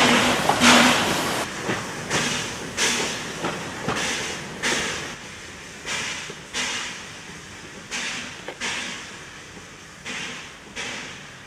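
Corpet-Louvet 0-4-0 steam tank locomotive chuffing as it pulls its train away, about one exhaust beat a second, the beats fading steadily as the train draws off.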